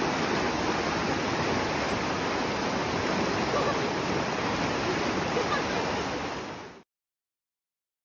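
Rain-swollen creek in flood: a steady rush of fast whitewater. It fades out about six and a half seconds in and cuts to dead silence.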